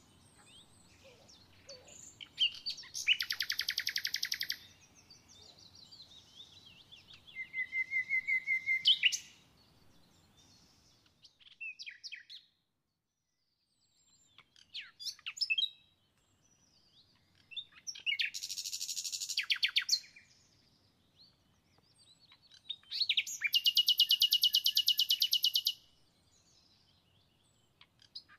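A songbird singing in several bouts of rapid, high trills, each lasting one to a few seconds, with quiet gaps between them.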